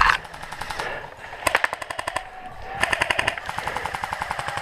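Airsoft guns firing on full auto in rapid bursts of sharp clicking shots. There is a short burst at the start, another about a second and a half in, and a longer one from about three seconds in.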